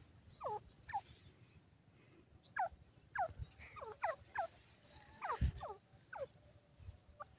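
Grey francolin giving a string of short calls, each note sliding quickly down in pitch, about a dozen at uneven intervals. A low thump sounds about five and a half seconds in.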